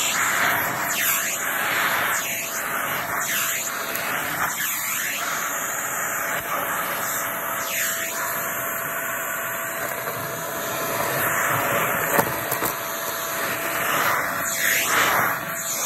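Shark vacuum cleaner running and sucking up crunchy debris, with a steady whine. Its airflow sound swoops down and back up every second or so as the nozzle is moved, with a sharp click about twelve seconds in.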